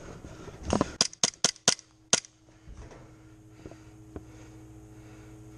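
Airsoft gun firing five quick shots, sharp cracks about a fifth of a second apart with a slightly longer gap before the last.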